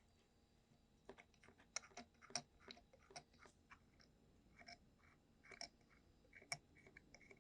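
Faint, irregular clicks and light taps of small hard parts being handled, about a dozen over several seconds.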